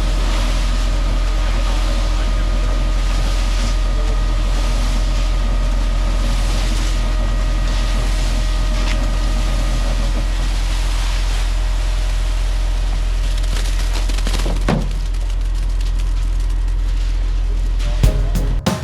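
Concrete mixer truck's diesel engine running steadily, a deep drone with a faint steady hum above it, with a single knock about three-quarters of the way through.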